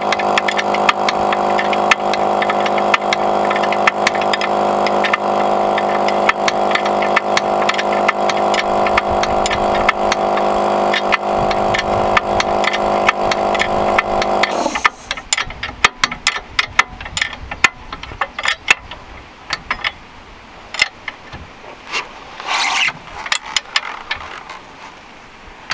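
A steady mechanical hum of several tones, like a machine running, that stops abruptly about 15 seconds in. Over it and after it come sharp metallic clicks and scrapes of a hand wrench tightening the lower control arm's suspension nuts.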